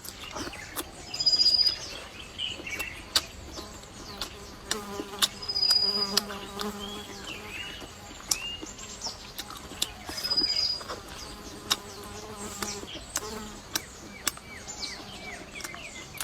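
A fly buzzing close by in spells, a steady low hum that comes and goes through the middle, with short bird chirps and scattered sharp clicks.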